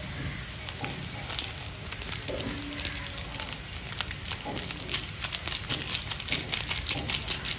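Water boiling hard in an aluminium pot of instant noodles: a steady hiss full of popping, crackling bubbles that grows denser and louder in the second half. A foil spice sachet crinkles as it is shaken out over the pot.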